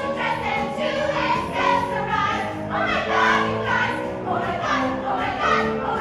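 Chorus of voices singing a musical-theatre number over instrumental accompaniment.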